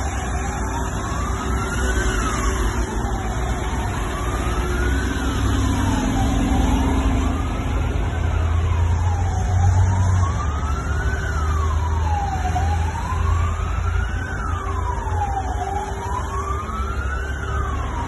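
A siren wailing, its pitch rising and falling about every three seconds, over the low rumble of a convoy of military trucks driving past.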